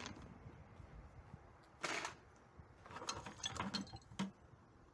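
Faint handling noise of hand tools: a short scraping rustle about two seconds in, then a run of light clicks and clinks ending in a sharp click, as a steel pipe wrench is lifted out of a plastic bucket and handled.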